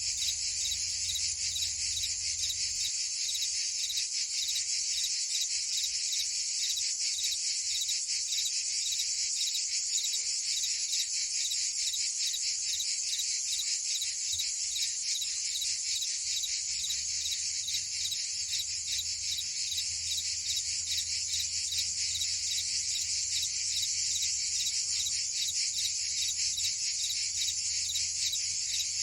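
Chorus of crickets and cicadas: a dense, steady high trill with a fast, even pulse.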